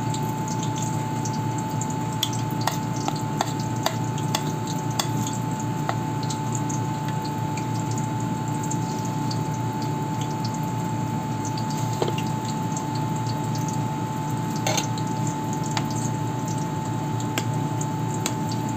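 Hot oil sizzling steadily in a frying pan as spoonfuls of banana fritter batter fry, over a steady hum, with scattered light clicks of a spoon against the bowl and pan.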